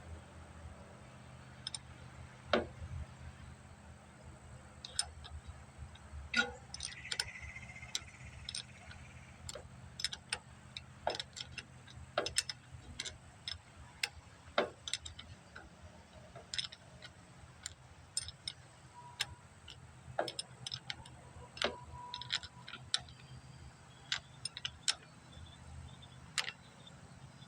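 Irregular light metallic clicks and clinks of hand tools and parts being handled while working on a lawn tractor, over a faint low steady hum.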